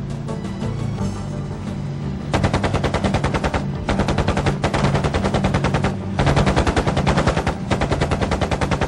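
Background music, then bursts of rapid automatic gunfire beginning a couple of seconds in and repeating in long strings with short pauses between them, over the music.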